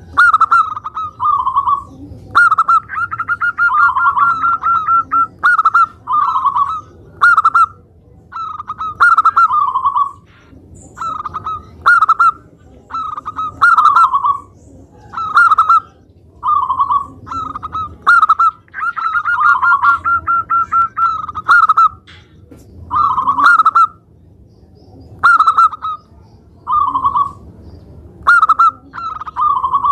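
Zebra dove (perkutut) cooing over and over: short, loud coos in quick groups, broken twice by a longer rolling trill, once a few seconds in and again past the middle.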